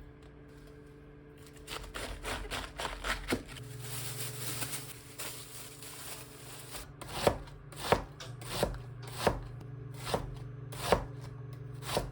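Knife chopping on a cutting board: a run of quick, light cuts, then slower, heavier strikes about every half second near the end, over a steady low hum.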